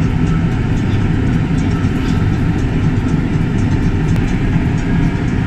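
Steady low rumble of an airliner in cruise flight, heard inside the cabin: engine and airflow noise, with a few faint light ticks.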